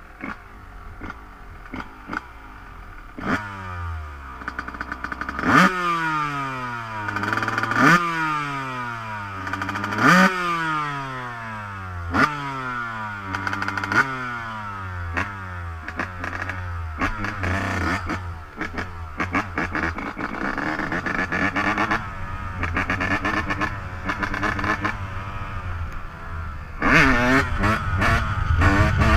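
Dirt bike engine being ridden off-road. Repeated throttle bursts send the pitch jumping up, and each one falls away over about two seconds, several times in a row. It runs steadier later and louder near the end.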